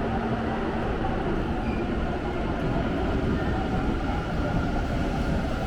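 Electric train running with a steady rumble of wheels and motors.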